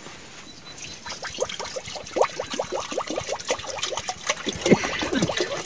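Water pouring and gurgling: a quick run of small splashing blips that starts about a second in and grows louder.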